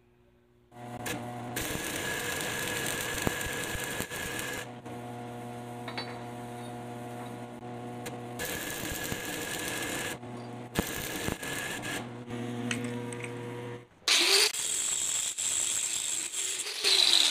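Stick (arc) welding on a metal plate: the arc crackles over a steady electrical hum in several runs with short breaks. About fourteen seconds in, an angle grinder takes over, grinding the welded plate with a high, hissing grind.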